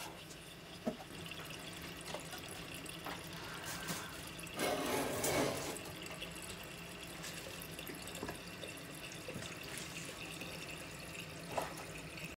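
Water running from hoses into a kitchen floor drain during a flow test, with a louder stretch of water noise about five seconds in and a few sharp clicks. The drain is taking the water freely after being cleared of a blockage.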